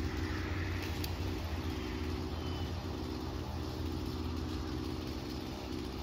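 Engine running steadily at low, even revs, like a vehicle idling.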